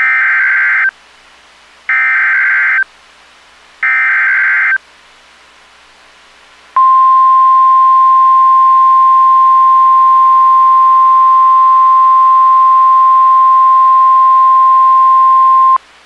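NOAA Weather Radio Emergency Alert System activation: three SAME header bursts of digital data, each about a second long and two seconds apart, then the steady 1050 Hz warning alarm tone held for about nine seconds, announcing a new severe thunderstorm warning.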